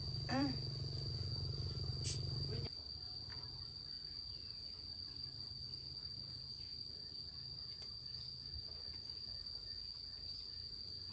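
Insects chirring in one steady high-pitched drone. A low hum underneath stops abruptly about two and a half seconds in.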